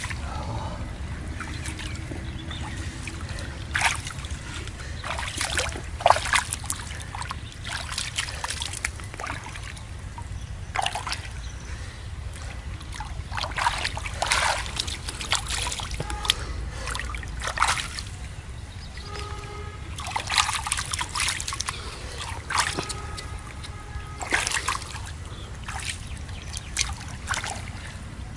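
Water splashing and sloshing in irregular bursts, as catfish are caught in a shallow canal, over a steady low rumble.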